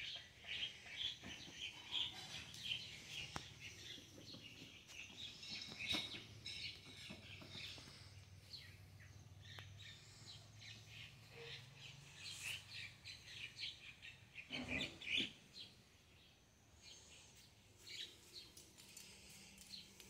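Small birds chirping in quick, dense, faint chatter that thins out over the last few seconds. A brief, louder rustling noise comes about fifteen seconds in.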